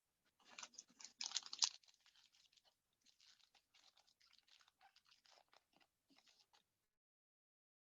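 Foil trading-card pack wrapper crinkling as it is torn open, loudest in the first two seconds, followed by faint rustling and light ticks of the cards being handled.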